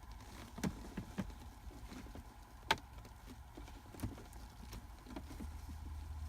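Faint clicks and taps of small plastic parts being handled, as a bulb socket is fitted back into a shift lever trim; the sharpest click comes a little under three seconds in. A low steady hum comes in near the end.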